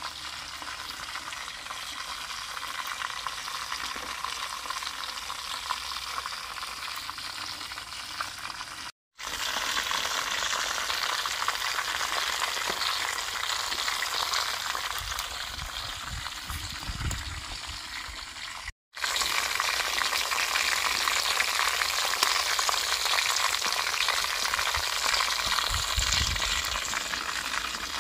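Marinated chicken pieces deep-frying in hot oil in an aluminium karahi: a steady sizzle of bubbling oil. It breaks off briefly twice, and is louder after each break.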